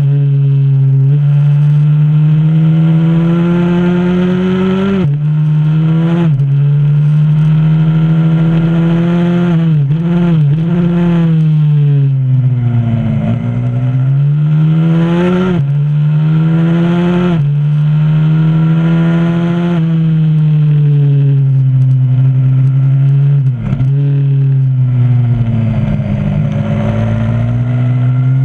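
125 cc supermoto pit bike's single-cylinder four-stroke engine at full racing revs. It climbs through the gears with a sudden drop in pitch at each upshift, falls away when braking into the corners and rises again on the way out.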